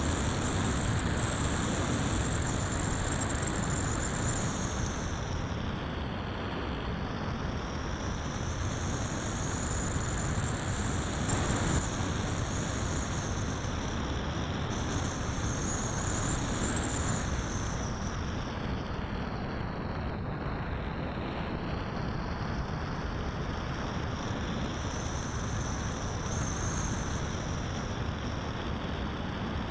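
Electric-converted Great Planes Fling 2-meter RC sailplane in flight, heard from a camera on board: steady rushing airflow over the airframe and microphone, with a high whine from the electric motor and propeller that slowly rises and falls in pitch.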